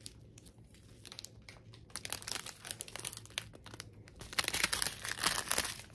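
Small clear plastic bags of diamond-painting drills crinkling in the hands, in irregular crackles that are faint at first and grow louder and busier in the second half.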